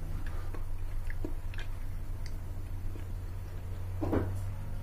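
A person chewing a mouthful of creamy condensed-milk pudding, with small wet mouth clicks, over a steady low hum. About four seconds in, a metal spoon cuts into the pudding and touches the ceramic plate.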